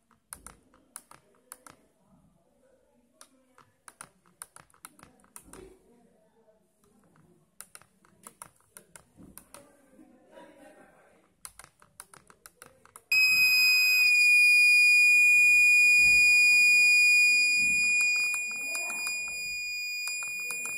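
Tactile push buttons on a small keypad clicking as a password is keyed in, then, after a wrong password, a piezo buzzer sounds a loud steady high-pitched alarm tone that starts about two-thirds of the way in and holds on, dropping somewhat in level after a few seconds.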